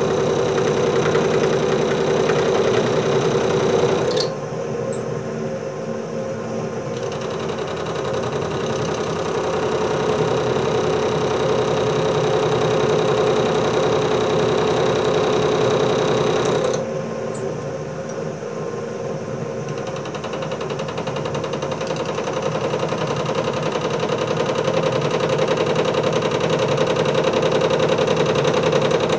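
Small metal lathe running with a steady motor and gear hum while a vise jaw is turned in the chuck to cut grip grooves into its face. The sound drops suddenly to a lower, duller level about four seconds in and again near seventeen seconds, then slowly builds back up.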